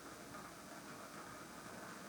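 Candle burning with a faint, steady crackle over a soft hiss.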